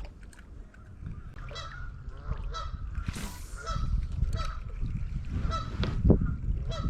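Waterfowl giving a string of short honking calls, one every half second to second, over a low rumble that builds in the second half.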